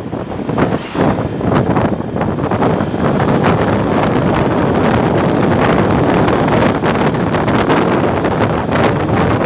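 Wind buffeting the microphone on a moving motorcycle, a loud steady rush with the bike's running and road noise underneath.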